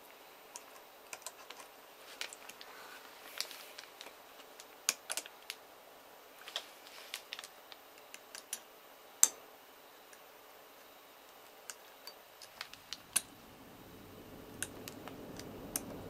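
Scattered small clicks and ticks of a metal pick and fingertips prying at parts inside an opened iPad 2's aluminium housing, the sharpest click about nine seconds in. A low steady hum comes up from about two-thirds of the way through.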